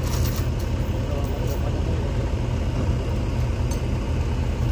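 A heavy truck's engine running steadily at low revs, a deep even rumble, with a few faint ticks over it.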